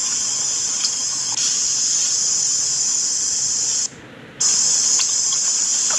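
Steady high-pitched insect chorus, like a continuous shrill hiss. It cuts out for about half a second a little past the middle, then resumes, with a few faint ticks.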